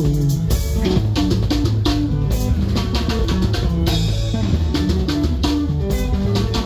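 Live sungura band playing: drum kit keeping a steady beat under a busy electric bass line and electric guitars.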